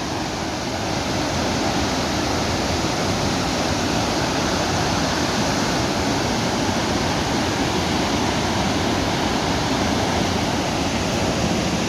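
Iguaçu Falls roaring: the steady, even rush of a massive waterfall, water plunging over the falls, with no let-up.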